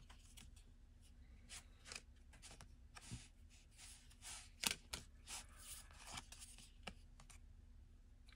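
Faint handling of trading cards: short rustles and light clicks as cards are slid and flicked past one another one at a time.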